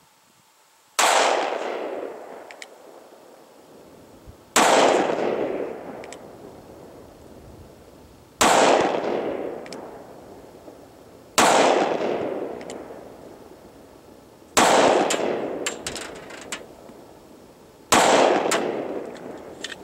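Six gunshots from a short-barrelled Smith & Wesson M&P Shield .40 S&W pistol, fired one at a time about three to three and a half seconds apart, each with a long echo that fades over a couple of seconds. A few faint ticks fall between some shots.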